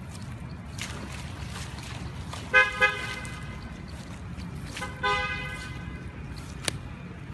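A vehicle horn honks: two short toots about two and a half seconds in, then one longer toot about five seconds in, over a steady low rumble. A sharp click comes near the end.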